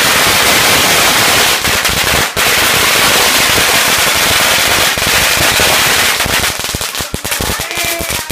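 A string of firecrackers going off on the ground in a rapid, continuous crackle of bangs, with a brief break a little after two seconds. Near the end it thins out into separate, scattered pops.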